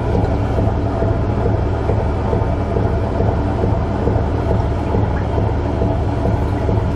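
A fishing boat's engine running steadily: a continuous low drone with no change in speed.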